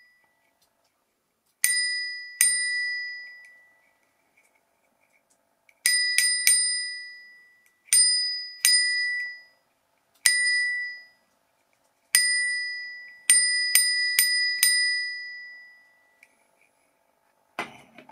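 Mini thumb-operated bicycle bell dinging about thirteen times, singly and in quick runs of two to four, each ding ringing out for a second or two. A brief handling rustle comes near the end.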